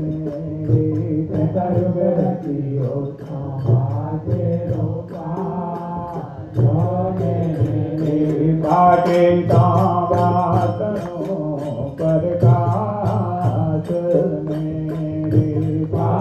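Hindu aarti hymn being sung over a steady low drone, with a regular beat of sharp percussion strikes, about four a second.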